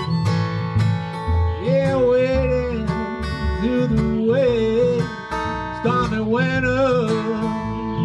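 Acoustic trio music: an Eastman acoustic guitar strummed in a steady rhythm over low notes plucked on a washtub bass, with a harmonica playing a bending melody over them in three phrases, starting about a second and a half in.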